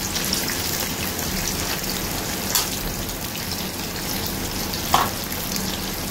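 Quartered boiled potatoes sizzling steadily in hot oil in a kadhai as they fry. Two short metal clinks, about two and a half and five seconds in.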